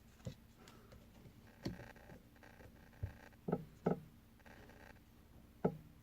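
Faint handling of trading cards: a few soft taps and clicks as cards are flipped through and set down, two of them close together about midway.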